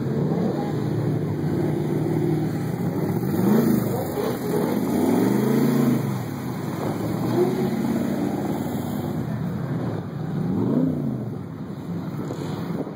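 Several Shelby V8 engines revving together, their notes overlapping as each rises and falls in pitch with repeated blips of the throttle.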